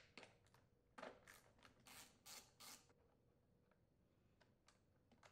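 Faint, short clicks of a ratchet and socket loosening the nuts that hold the recoil starter on a Kohler small engine, half a dozen or so over about the first three seconds.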